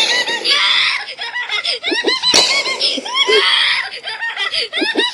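High-pitched shrieking laughter mixed with screams, in quick rising-and-falling peals with raspy breathy stretches between them. It repeats as a loop about every three seconds.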